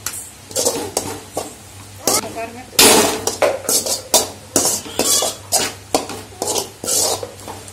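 Perforated steel spatula scraping and clanking against an aluminium kadai as a thick vegetable-and-sauce stir-fry is turned over, in repeated irregular strokes, with a light sizzle underneath.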